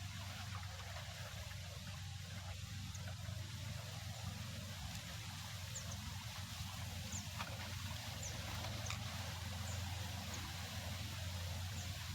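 Steady wind with trickling water and a low rumble, with a few faint, short high chirps scattered through the second half.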